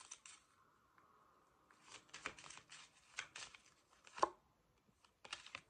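A deck of tarot cards being shuffled by hand: runs of quick, crisp card flicks, with one sharp tap a little after four seconds in and another short burst near the end.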